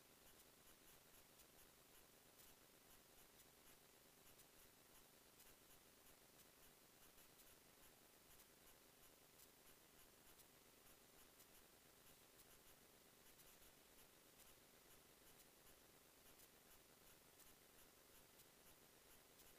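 Near silence: a faint steady hiss with faint ticks.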